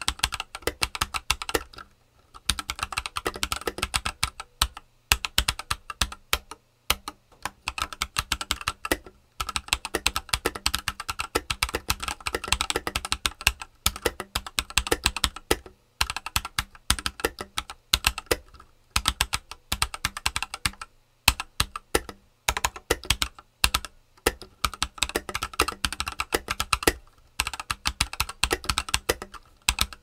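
Typing on a stock MagicRefiner M31, a clear 65% mechanical keyboard with linear Philikey Ice White switches and clear keycaps: rapid keystrokes in runs of a few seconds, broken by short pauses.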